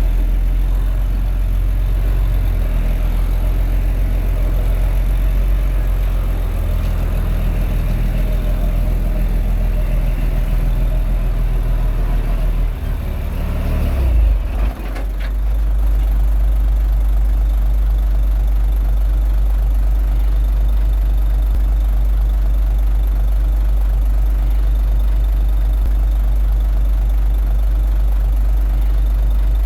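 Diesel engine of a Komatsu D21A bulldozer working, its note varying under load. About halfway through it drops back and settles into a steady idle.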